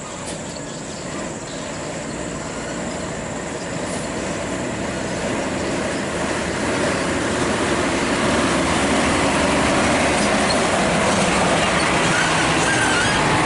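A Scania P420 diesel tractor-trailer hauling an excavator on a low-bed trailer, driving slowly over gravel: engine, tyres crunching on gravel and the rattle and grind of the heavy trailer, growing steadily louder as it comes up close and passes.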